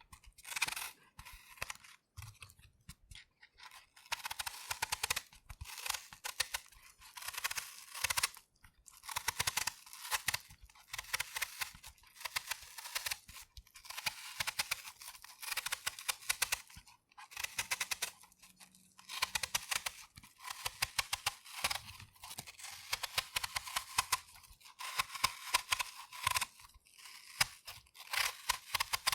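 A knife peeling the skin off a fresh apple: repeated strokes of fine, crisp crackling as the blade cuts under the peel, each lasting a second or two with short pauses between.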